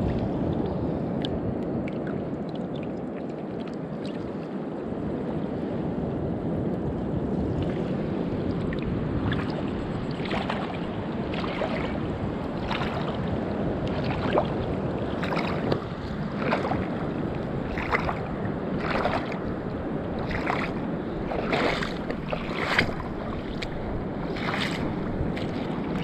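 Steady wind noise on the microphone. From about ten seconds in, footsteps crunch on shell-covered sand at roughly one step a second.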